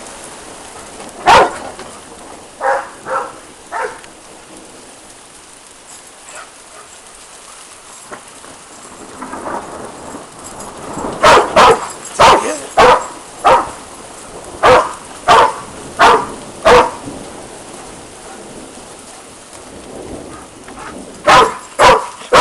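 A Labrador retriever barking in bursts, a few single barks early on and a run of about ten barks in the middle, over the steady hiss of hail and rain falling.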